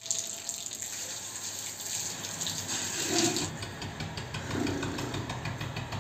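Water running from an outdoor wall tap in a steady hissing stream and splashing, with the low hum of the electric water pump motor that feeds the tap building up underneath. The hiss of the stream eases a little past halfway.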